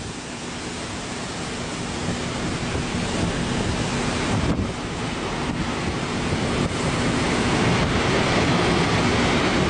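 Strong wind from a tornado passing close by: a dense rushing noise buffeting the microphone, growing gradually louder.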